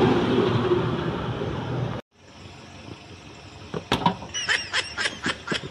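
A motor vehicle running close by, a steady low-heavy noise that cuts off abruptly about two seconds in. Then quieter outdoor background with a run of sharp clicks and a few short high chirps.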